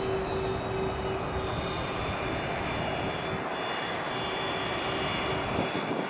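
Airbus A380-842's four Rolls-Royce Trent 900-series turbofans running at low taxi power: a steady rumble overlaid with a high engine whine of several held tones. The lowest rumble thins out near the end.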